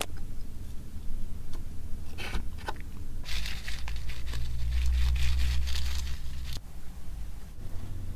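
Fingers pressing into and pulling through clear slime, making sticky crackling and small popping sounds. A few crackles come about two seconds in, then a dense spell of crackling with a low rumble under it from about three seconds in that stops suddenly midway through.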